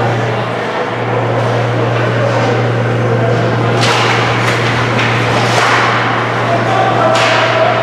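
Ice hockey faceoff and play: several sharp stick clacks and skate scrapes on the ice from about four seconds in, over a steady low arena hum.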